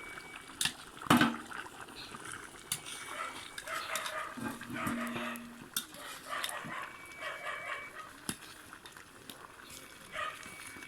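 A dog barking, among sharp knocks and clinks of cooking utensils; the loudest knock comes about a second in.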